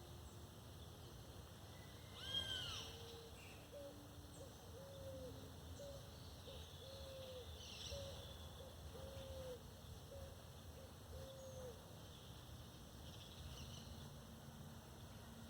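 Birds calling: one louder arched call about two seconds in, then a run of about eight low hooting notes, evenly spaced, with faint high chirps from other birds throughout and a low steady rumble beneath.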